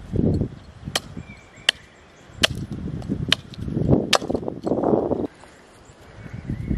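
Wood being chopped by hand: five sharp strikes about a second apart, with a low rumble between them.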